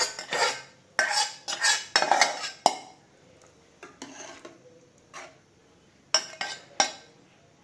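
Metal bowl and steel ladle clanking and scraping against the rim and sides of a metal pressure cooker as mashed cooked dal is scraped in and stirred into simmering sambar. A run of sharp clanks in the first three seconds, a few soft ticks, then three quick clanks near the end.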